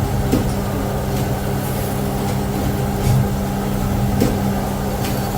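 Factory machine running with a steady low hum and a few faint, irregular clicks.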